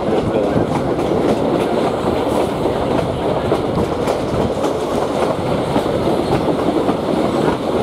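Railway passenger car rolling along the track, heard from aboard: a steady rumble of the wheels on the rails with irregular clicks over the rail joints.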